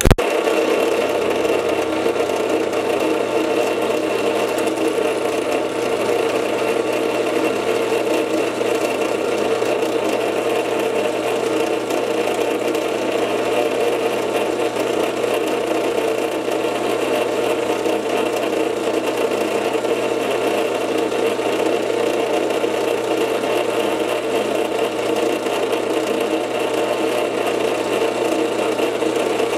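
Drill press switching on and running steadily with a constant whir, drilling a hole into an automotive pulley to cut a keyway.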